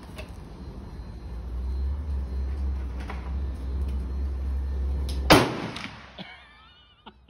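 A single shot from a black-powder muzzleloading rifle fired with a shotgun primer, about five seconds in, a sharp report that dies away over about half a second. A low rumble sounds for a few seconds before the shot.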